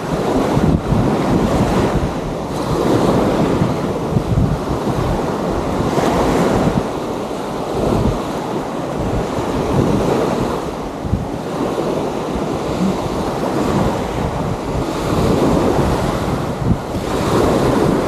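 Small waves washing onto a sandy beach, swelling and fading every few seconds, with wind rumbling on the microphone.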